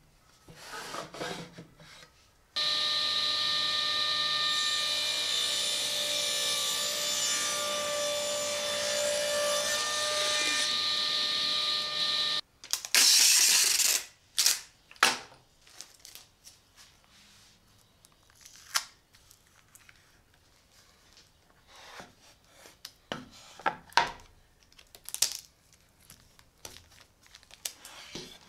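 Table saw running with a steady whine for about ten seconds as a board is cut, starting and stopping abruptly. Then a second of loud hiss, followed by scattered light knocks and scrapes of the cut wood piece being handled on the saw's metal table.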